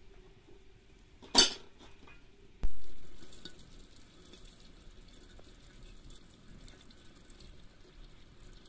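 Dry yellow split peas spooned from an enamel bowl into a glazed clay pot, a steady pattering of small ticks as they fall into it. Before that, a short clatter of crockery about a second in and a louder single knock a second later.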